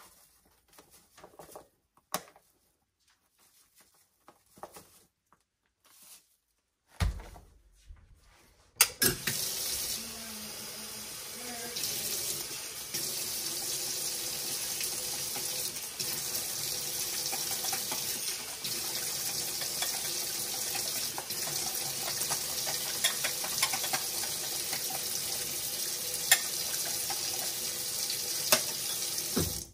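Kitchen faucet running into a stainless steel sink: a steady rush that starts about nine seconds in and cuts off at the end. A few sharp clinks of a wire whisk against a glass bowl sound over it. Before the water there are only soft rustles and taps.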